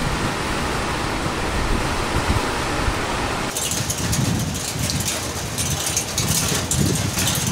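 Heavy rain in a windy storm: a steady rushing hiss, which about three and a half seconds in changes abruptly to closer, crackling rain patter over uneven low gusts of wind on the microphone.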